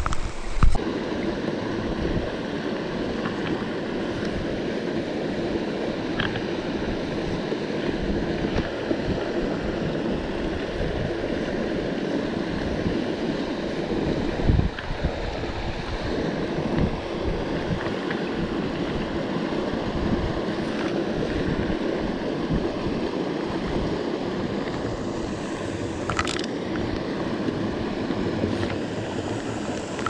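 Water spilling from outlets in a concrete check-dam wall into a pool: a steady rushing, with wind buffeting the microphone in low rumbles.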